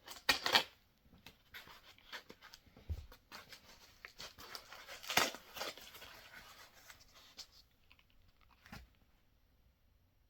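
Packaging being torn and crinkled by hand as a 3D-printed part is unwrapped: a run of short rustles and rips, the loudest just after the start and about five seconds in, dying away near the end.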